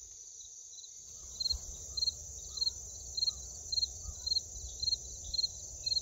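Insect chorus: a steady high drone with a cricket-like chirp repeating evenly about twice a second, over a low rumble.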